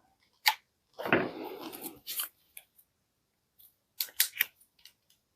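Handling noise from a cordless oscillating multitool and its parts being worked by hand. There is a sharp click, then about a second of scraping and rustling with another click, and near the end a quick run of three or four clicks.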